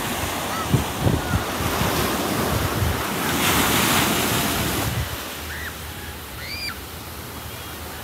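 Ocean surf washing onto sand and rocks, swelling about three and a half seconds in and easing off after five seconds, with wind buffeting the microphone in the first half.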